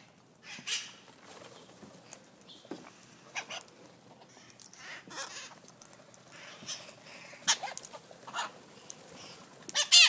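A flock of red-masked parakeets (cherry-headed conures) calling: a run of short, separate calls about every second, the loudest near the end.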